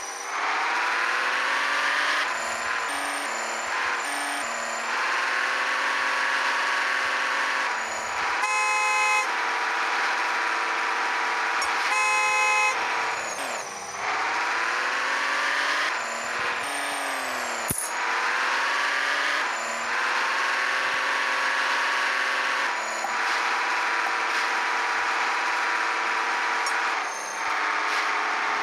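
Engine-revving and horn sound effects for toy vehicles: a pitched engine sound that rises again and again as it revs, with two short horn blasts, one about a third of the way in and one a few seconds later.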